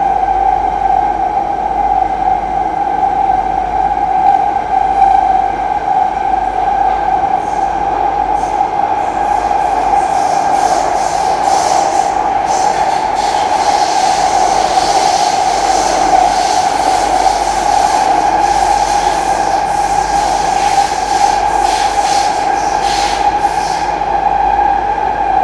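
Singapore MRT train running between stations, heard from inside the carriage: a loud, steady running noise with a constant whine. From about ten seconds in, a high hissing squeal from the wheels on the rails comes and goes until near the end.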